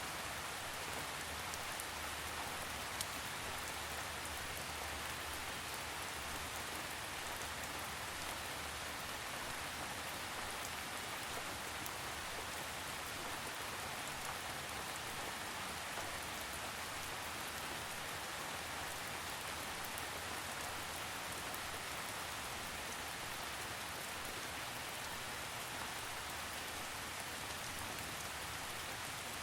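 Steady rain falling, with faint ticks of single drops.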